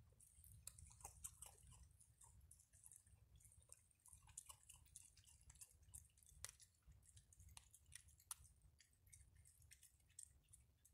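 Raccoons chewing and crunching dry food, faint, with many small sharp crunches and clicks scattered throughout.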